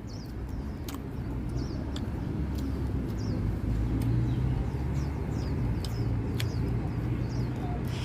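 Steady low outdoor rumble, with small birds chirping in short falling notes every second or so and a few sharp clicks.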